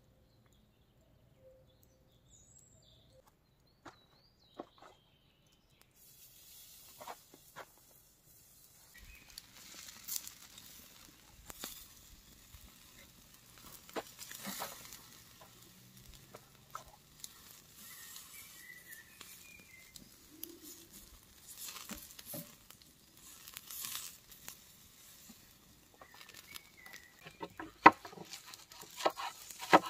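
Wood fire crackling and hissing, starting about six seconds in, with irregular sharp snaps; a few birds chirp.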